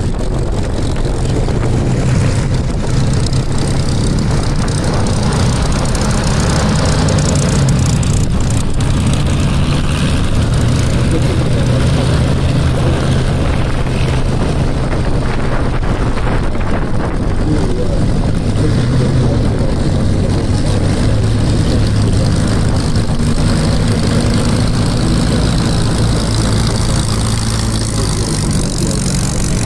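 Piston engine of a WW2 propeller warbird running loudly and steadily, its low drone shifting a little in pitch.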